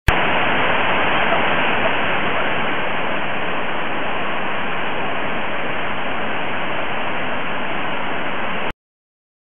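River rapids rushing: whitewater pouring over rocks in a steady, loud, even roar that cuts off suddenly about a second before the end.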